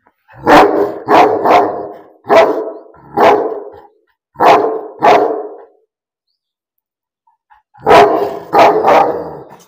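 Pakistani bully dog (bully kutta) barking: seven barks, a pause of about two seconds, then three more near the end.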